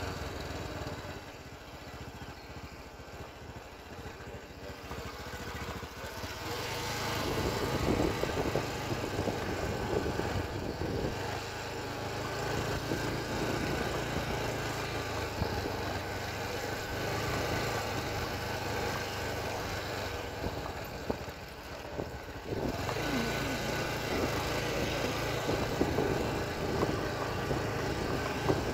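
Motorcycle engine running while being ridden, under a steady noisy rush. It gets louder about seven seconds in and dips briefly a little past the two-thirds mark.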